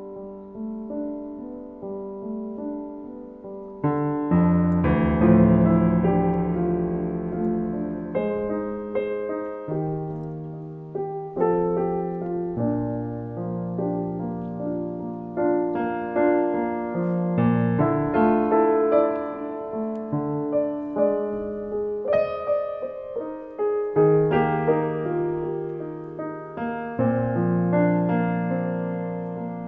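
Background piano music, slow and gentle: struck notes and chords that ring out and fade.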